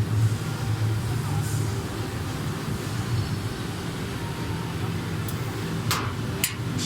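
Steady low electrical hum of a handheld fiber laser welding machine running, with three short sharp clicks in the last couple of seconds.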